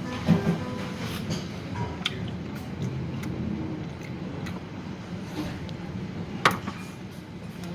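Dining-room ambience: a steady low hum with a few sharp clicks of tableware, such as chopsticks or dishes knocking during a meal, the sharpest about six and a half seconds in.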